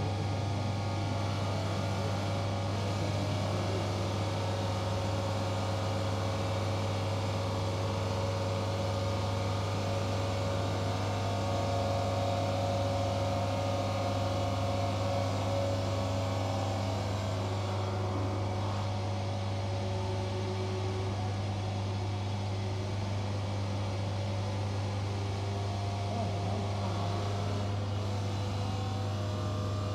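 Five-axis CNC bridge saw running, with a steady low motor hum and even machine tones, as its water-cooled saw blade works a stone slab.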